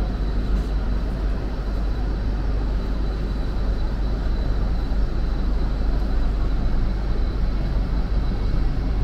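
Steady low rumble of a moving vehicle, with a faint steady high whine on top.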